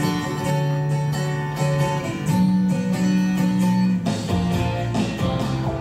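Recorded song playing, led by guitar, with held notes that change about once a second.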